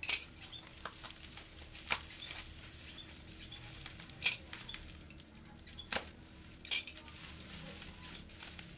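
Bubble-wrap packaging being handled and unwrapped: soft rustling with about five sharp crinkling crackles spread through.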